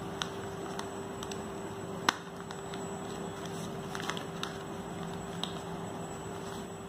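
Newspaper being handled and pressed flat on a tiled floor: light rustling with a few sharp clicks and taps, the loudest about two seconds in, over a steady low hum.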